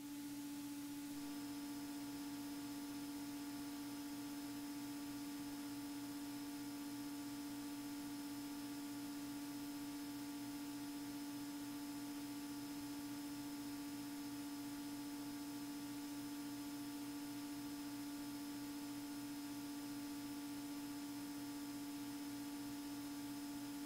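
Faint, steady drone of a Beechcraft Bonanza A36 in flight, heard as a constant hum of a few fixed tones over a light hiss through the headset intercom feed, with no change in power.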